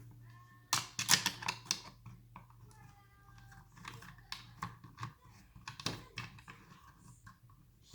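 Hard plastic and metal parts of an electric chainsaw clicking and knocking as they are handled and fitted together during assembly, in irregular clusters of sharp taps, the loudest about a second in and more around five to six seconds in.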